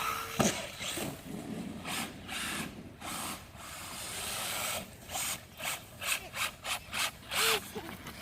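Brushless 1/8-scale RC monster truck driving in short bursts with scraping, rasping noises, a quick run of them at about four a second in the second half: it sounds like a drive shaft has gone, and the front drive shaft has popped out.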